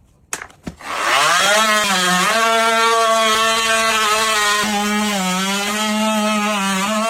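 An electric power tool's motor winds up about a second in and runs at a steady pitch, dipping slightly now and then as it bears on the work, with a brief click just before it starts.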